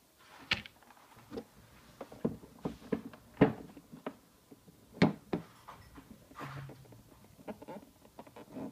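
Handling noise from the plastic motor cover and housing being turned over and fitted together: scattered clicks and knocks, with the two loudest sharp knocks about three and a half and five seconds in.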